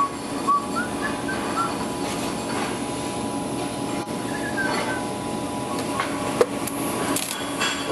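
Workshop noise: a steady hiss with a faint hum, a few short squeaks early on, and several sharp metallic knocks near the end.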